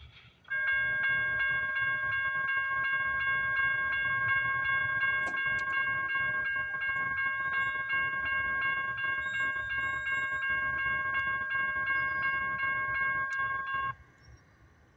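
Railroad grade-crossing bell ringing with rapid, evenly spaced dings as the crossing activates. It starts about half a second in and cuts off suddenly near the end, around when the gate arm comes down.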